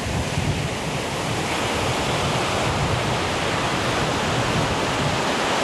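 Ocean surf washing up the beach: a steady rush of breaking and receding waves.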